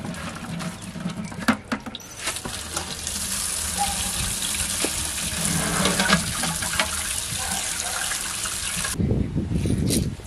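Running water splashing onto star fruit in a woven bamboo basket while hands rub and turn the wet fruit, with small knocks and clicks. The water cuts off about a second before the end, leaving the sound of the fruit being handled.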